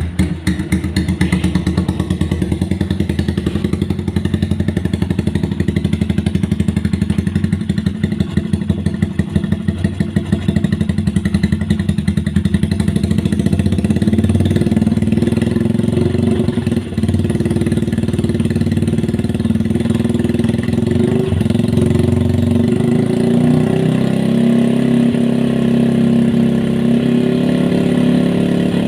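Yamaha Byson single-cylinder motorcycle engine idling through its exhaust just after starting, with quick, even exhaust pulses. The running grows a little louder and steadier about halfway through.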